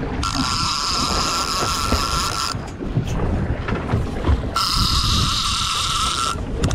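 Fishing reel whirring in two spells of about two seconds each, with a pause between, as line runs on the reel during the fight with a couta. Wind buffets the microphone throughout.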